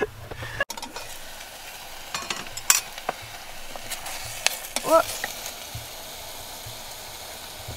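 Utensil stirring in a steel pot of steaming vegetables over a stove, with a steady hiss of steam and sizzling and a few sharp metal clicks and scrapes against the pot between about two and five seconds in.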